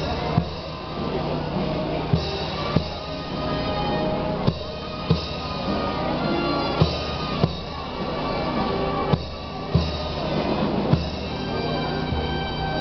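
A procession band playing a slow march: held notes over drum strokes that come in pairs about every two seconds.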